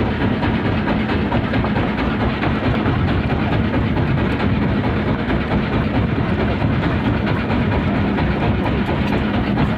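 Fishing boat's engine running steadily, a dense, unbroken low drone with a faint steady hum.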